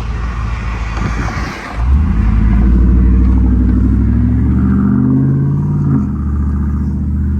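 Stock 5.3 V8 running through a true dual exhaust with Borla XR1 mufflers and an X-pipe as the truck pulls away. The engine pitch climbs for a couple of seconds, then drops abruptly about six seconds in.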